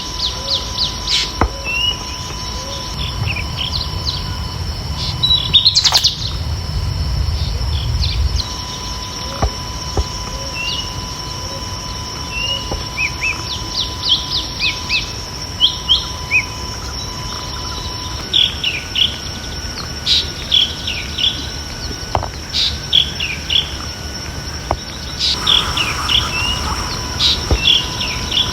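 Ambient nature recording of several small birds chirping in short repeated calls and quick trills, over a steady high insect trill.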